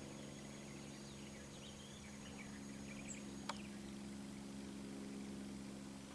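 Quiet outdoor ambience: faint small-bird chirps in the first couple of seconds over a steady low hum, with a single sharp click about three and a half seconds in.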